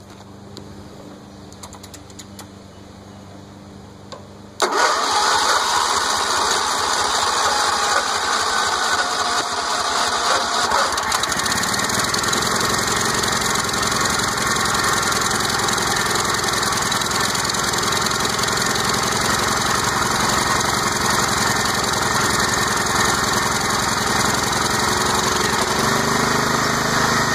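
A Ford New Holland LS35 tractor's Kohler Command 15 single-cylinder engine is started: the starter cuts in suddenly about four and a half seconds in and cranks for several seconds while the new impulse fuel pump fills the empty carburetor. The engine then catches and runs steadily.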